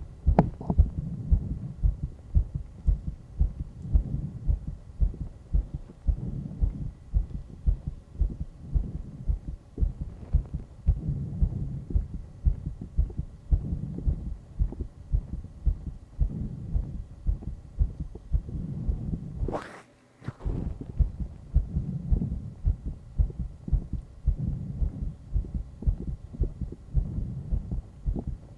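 A man's heartbeat, beating fast after exercise: a steady, rapid run of low thumps. About twenty seconds in there is a sharp click and a brief dropout.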